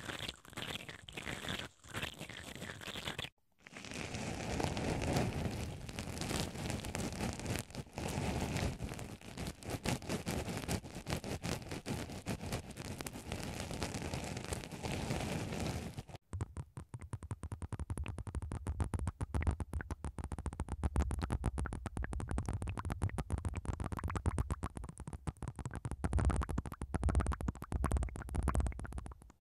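ASMR triggers on binaural ear microphones. For about three seconds a black spiral brush scratches inside the hole of a ball-shaped ear cover. After a short gap, a black swab stick is pushed and scraped into a foam block, giving a dense, scratchy crunching. About sixteen seconds in, the sound changes to a fast, close crackling with a low rumble as a syringe of blue liquid is worked over the bare microphone capsule.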